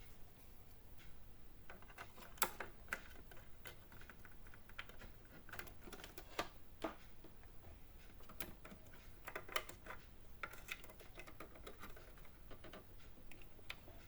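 Scattered light clicks and taps, irregular and a few a second at most, of a SO-DIMM RAM module being swapped in an opened HP all-in-one PC.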